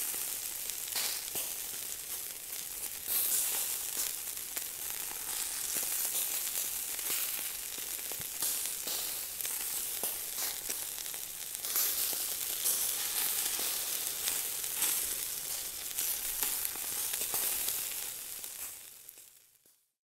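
Burgers sizzling as they fry: a steady hiss with scattered crackles and pops, fading out about a second before the end.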